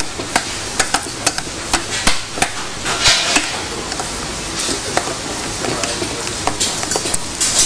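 Wooden spatula stirring and breaking up mashed potatoes in a stainless steel bowl, with repeated irregular knocks of the spatula against the bowl and a short scraping rush about three seconds in.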